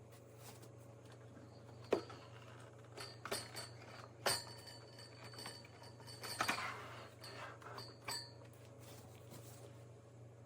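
Faint clinks and knocks of hard objects being handled over a low steady hum. A thin high ringing tone is held for about two seconds in the middle.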